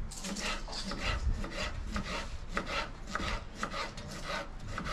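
Rhythmic rasping strokes, about four a second, of food being cut or worked by hand in kitchen preparation.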